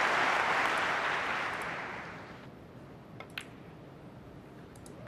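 Arena crowd applauding, the clapping fading away over about two seconds into a hushed hall. About three seconds in there are a couple of sharp clicks.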